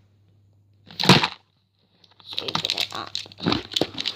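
A sharp crack about a second in, then from about halfway a run of crinkling and crackling, like plastic packaging being handled.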